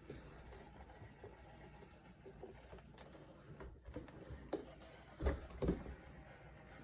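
Roomba j7+ robot vacuum running faintly and bumping against a Christmas tree: a few soft knocks over a low hum, the loudest two close together near the end.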